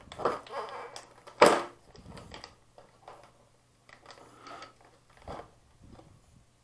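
Vacuum-formed plastic packaging tray crinkling and knocking as a radio-control transmitter is pulled out of it and handled, in a string of short rustles with one loud crackle about one and a half seconds in. A faint low hum runs underneath.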